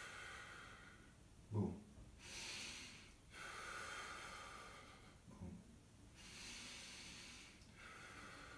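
A man breathing deliberately loudly in slow, full abdominal-and-chest breaths, with long hissing inhales and exhales alternating about every second or two. Each movement of the Wing Chun form is paced to the breath. A brief low sound comes twice between breaths.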